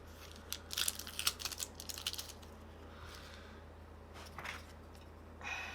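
Small plastic clicks and taps as the battery guard of a PS5 DualSense controller is handled and fitted into place: a quick cluster in the first two seconds or so, then a single click later on.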